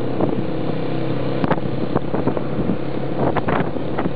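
Several small motorcycles riding in a group, their engines running with a steady drone, with wind rushing over the microphone. A few short sharp sounds cut in about three seconds in.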